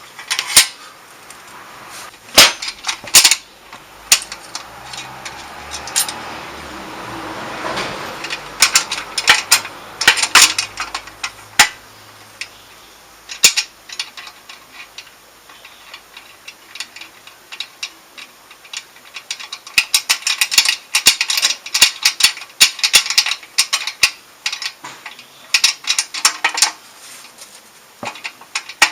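Hand tools working on a motorcycle's exhaust: sharp metal clinks and knocks at uneven intervals, turning into a dense run of rapid clicking in the last third, like a ratchet wrench being worked.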